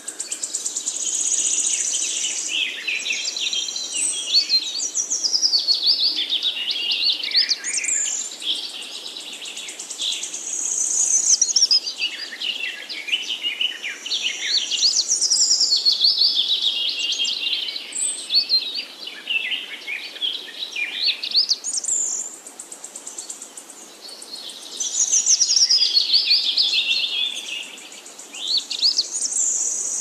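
Songbird singing long, fast warbling phrases, several seconds each, that often open on a high held note and tumble down in pitch. The phrases repeat with short pauses between them.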